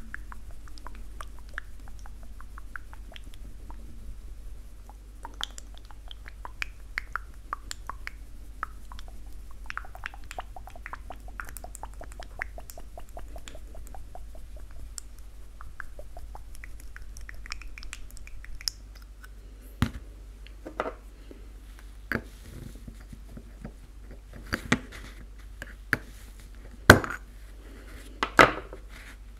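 Small ticks, taps and scrapes of hands handling hobby paint tins, a brush and a cup on a cardboard-covered table. Sharper knocks come in the last ten seconds as a small metal paint tin is picked up and handled. A faint steady low hum runs underneath.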